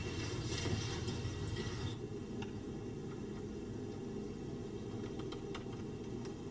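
Steady low background hum and hiss of room tone, with a few faint ticks about two and a half seconds in and again near five seconds.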